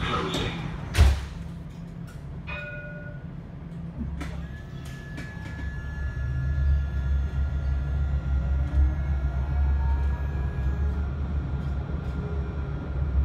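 Inside an Alstom tram car: a sharp thump about a second in and a short chime, then the tram pulls away. Its electric drive whines up in pitch as it gathers speed over a steady low rumble from the wheels on the rails.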